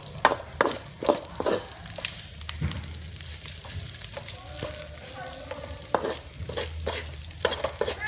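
Metal spatula scraping and knocking against a steel wok while stir-frying chicken with shredded lemongrass and lime leaves, the food sizzling underneath. Irregular scrapes come every second or so.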